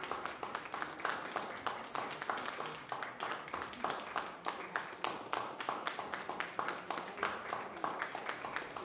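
Small audience applauding, many separate hand claps at a steady level.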